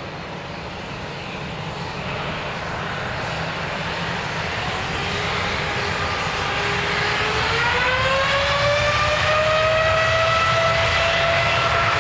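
Boeing 787 Dreamliner's turbofan engines spooling up for takeoff. A whine grows louder, climbs in pitch about two-thirds of the way in, then holds steady over a rumble.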